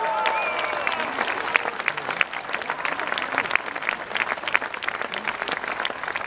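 A large audience applauding: dense, steady clapping, with a few held calls from the crowd dying away in the first second.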